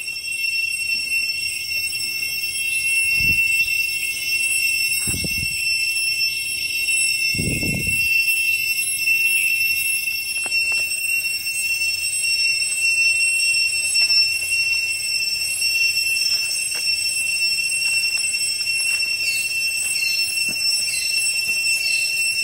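Loud chorus of forest insects, several steady high-pitched whining drones layered together, with short rising calls repeating near the end. A few low thumps sound in the first seconds.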